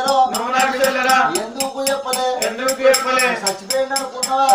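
Men singing a drawn-out, wavering Telangana Oggu Katha folk chant, held on long notes, with small hand cymbals keeping a steady beat of about four strikes a second.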